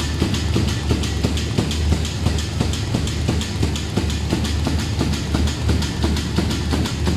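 MF-ATM900 automatic double-sided tape pasting machine running: a steady low hum with a fast, even clatter of clicks from its feed mechanism.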